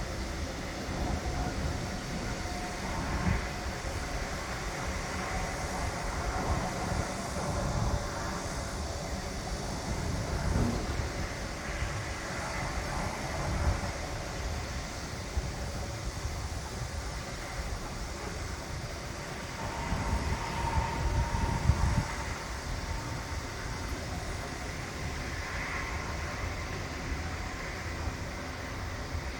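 Construction site machinery running in a continuous low rumble that swells and eases, with a few faint steady tones and occasional short louder peaks, the loudest near the end of a swell about three quarters of the way in.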